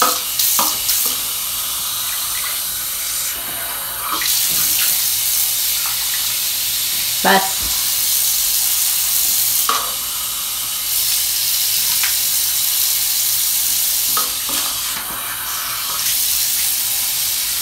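Bathroom sink faucet running steadily, its stream splashing into a plastic yogurt cup held under it and into the basin. A few short sounds stand out over the steady rush, the loudest about seven seconds in.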